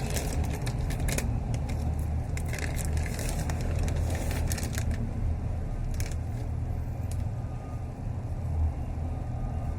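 Light crinkling and clicking of packaging being handled, scattered through the first half and once more about six seconds in, over a steady low rumble.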